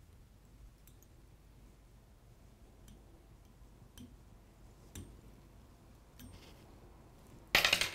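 Faint, scattered light ticks from a wire whip-finish tool and tying thread being turned around the head of a fly in the vise. Near the end comes one short, louder scrape of noise.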